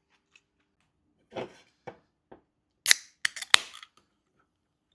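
A handful of sharp hard-plastic clicks and snaps, with three or four in quick succession about three seconds in, as from handling keycaps and their packaging.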